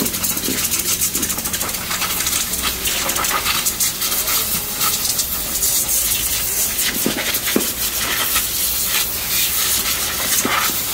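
Compressed air hissing steadily from a blow-gun nozzle aimed into a freshly washed brake drum, blowing it dry.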